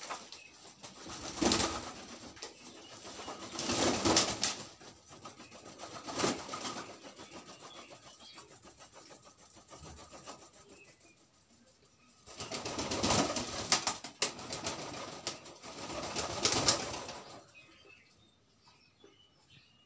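Pigeons beating and fluttering their wings in several rough bursts of one to two seconds each, with quieter gaps between; in the early bursts the birds are bathing, so the flapping splashes water.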